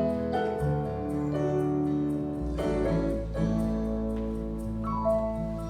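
Slow instrumental music led by piano, with held chords that change every second or two, playing the introduction to the next gospel song before any singing starts.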